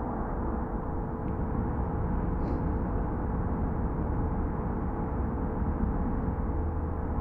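Electronic fixed-media soundtrack: a dense, low, rumbling noise drone with a steady held tone running through it. A deep low hum swells near the end.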